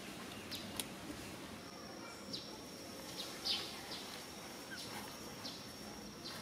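Outdoor ambience of short, high chirps, about eight scattered through, over a low steady hum. A thin, steady high tone sets in about one and a half seconds in.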